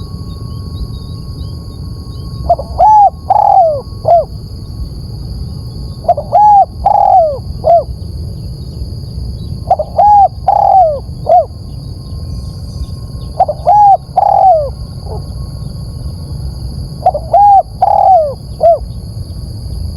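Spotted dove cooing: five phrases of three or four notes, one phrase about every three and a half seconds, over a steady background hiss.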